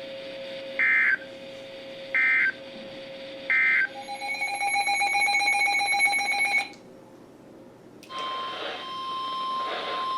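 Emergency Alert System digital data: three short warbling bursts about a second apart, the end-of-message code closing a tornado watch broadcast. They are followed by a harsh buzzing tone for a couple of seconds, then, after a short gap, the steady 1050 Hz NOAA Weather Radio alert tone that opens the next warning.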